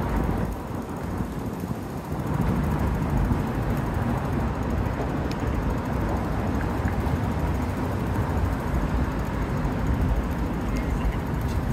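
Steady rumble of city street traffic, a little quieter for the first two seconds before rising and holding steady.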